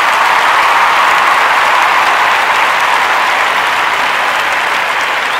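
Sustained applause from a crowd, a steady dense clapping that eases slightly toward the end.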